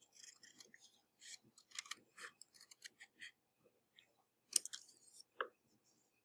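Faint rustling and crisp snips of cut-out paper pieces being handled, with two sharper clicks about four and a half and five and a half seconds in.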